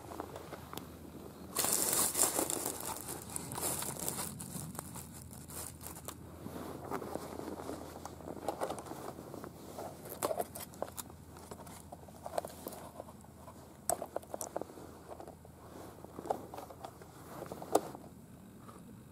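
Irregular rustling and crinkling handling noise close to the microphone, with scattered clicks and ticks. It starts suddenly about a second and a half in, louder at first, with a sharp tick near the end.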